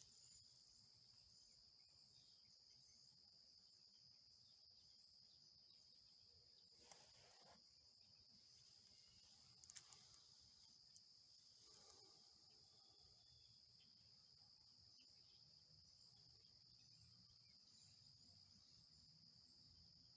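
Faint, steady, high-pitched insect chorus, crickets chirring without a break, with a few faint brief noises partway through.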